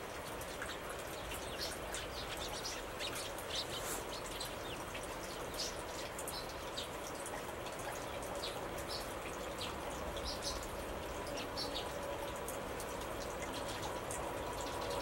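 Small birds chirping now and then in short high calls over a steady outdoor hiss. A faint steady tone comes in during the second half.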